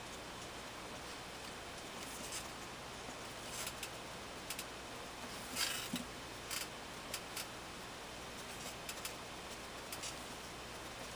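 Pencil sketching on paper: short, scratchy strokes come irregularly over a steady background hiss, the loudest about halfway through.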